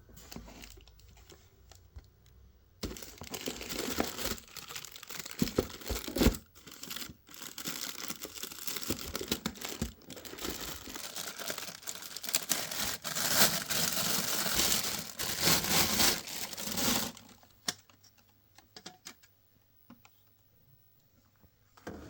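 Packaging being handled: tearing and crinkling from about three seconds in until a few seconds before the end, with sharp clicks mixed in, then only faint scattered clicks.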